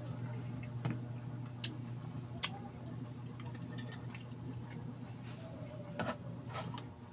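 Close-up eating sounds: mouth and chewing noises, a drink can set down on the tray, and a metal spoon clinking in a glass dish of vinegar dip and against a balut egg, as a few sharp clicks. A steady low hum runs underneath and stops near the end.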